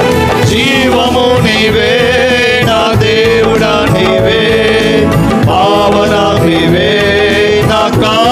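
Male voices singing a devotional song into microphones, with vibrato on long held notes, over sustained electronic keyboard accompaniment.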